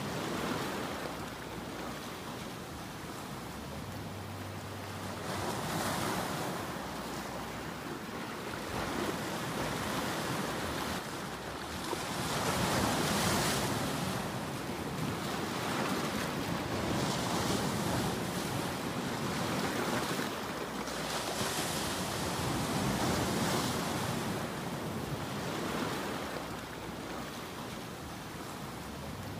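Ocean waves breaking, a steady wash of surf that swells and eases every few seconds.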